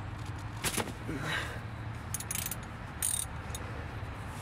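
Ratchet wrench with a 15 mm socket clicking in a few short bursts as it loosens an engine oil drain plug.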